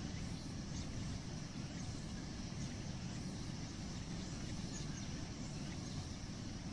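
Fast-flowing muddy floodwater rushing past: a steady, unbroken noise of torrent water, heaviest in the low end.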